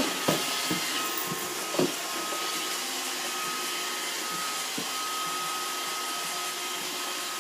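Roomba robot vacuum running: a steady whirring hum with a thin high whine, and a couple of light knocks in the first two seconds.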